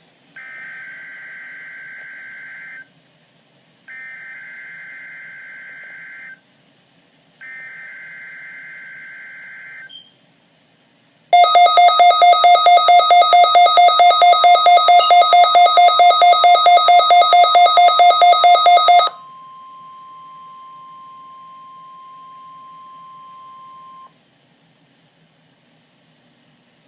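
Emergency Alert System weekly test tones on NOAA Weather Radio: three screeching digital SAME header bursts of about two and a half seconds each, then a loud buzzy alarm beeping about five times a second. About three seconds into the beeping, the steady 1050 Hz weather radio warning tone starts. It carries on alone for about five seconds after the beeping stops, then cuts off.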